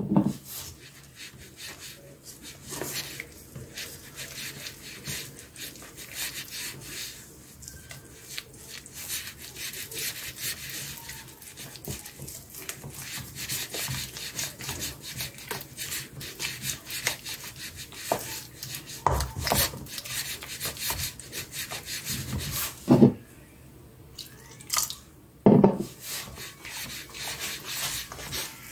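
Wooden spoon stirring and scraping flour and water into a thick frying batter in a stainless steel bowl: a fast, continuous rasping, with a few louder knocks in the second half.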